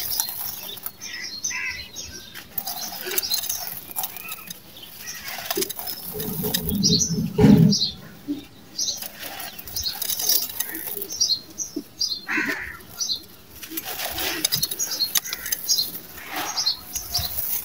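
Dry gritty sand-cement and small stones crunching and rustling under the fingers as hands sift and crumble them in a clay bowl. There is a louder, deeper crunch about seven seconds in as a lump is squeezed apart.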